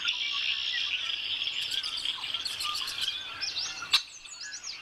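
A dense chorus of many birds chirping and singing at once. A single sharp click sounds a little under four seconds in.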